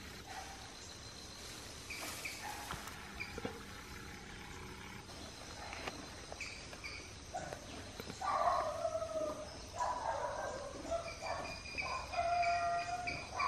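Animal calls: a run of loud, repeated pitched cries that starts about eight seconds in, over faint steady background sound.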